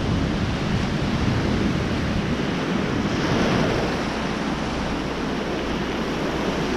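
Surf washing onto a beach, with wind buffeting the microphone; a low steady rumble joins in underneath about four seconds in.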